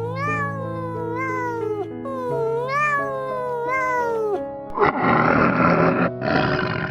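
Cat meowing four times, each meow rising then falling, over background music. This is followed by two loud, harsh, noisy blasts.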